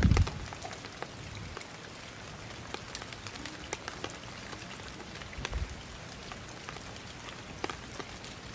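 Light rain pattering on surfaces, scattered drop ticks over a steady hiss. A loud low thump on the microphone right at the start.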